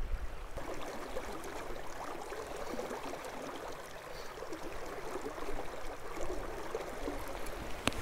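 River water flowing and rippling past the bank in a steady rush, with a sharp click near the end.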